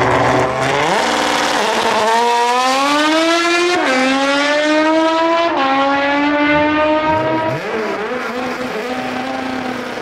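Honda Civic coupe's four-cylinder engine launching down a drag strip: held at high revs on the line, then accelerating hard through the gears, the pitch climbing in each gear and dropping at each upshift about every two seconds. It fades near the end as the car pulls away.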